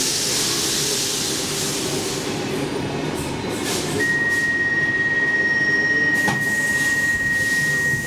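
Stockholm metro train standing at a platform, with a steady rumble and a hiss of air in the first few seconds. About halfway through, a single steady high-pitched tone sounds for about four seconds, the door-closing warning, and cuts off with a clunk at the end.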